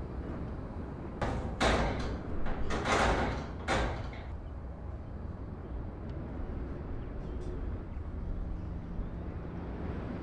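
Metal-framed grille door of a classroom being worked: a quick run of rattles, knocks and scrapes starting about a second in and lasting about three seconds, then only a steady low background hum.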